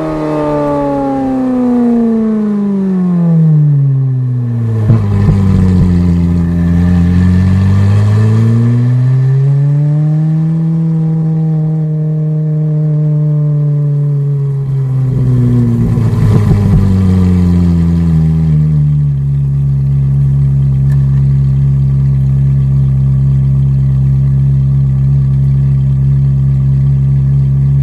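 Ferrari 430 Scuderia's V8 through a straight-piped exhaust, revs falling, climbing again and holding, then dropping once more, with a few sharp crackles from the exhaust as it comes off the throttle. It then settles to a steady low-rev drone for the last several seconds.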